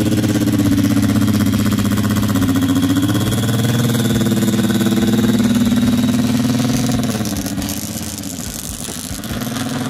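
Sand drag trike's motorcycle engine running at a low, steady speed as the trike rolls slowly by, its pitch shifting slightly about three seconds in. The sound fades over the last few seconds as the trike moves away.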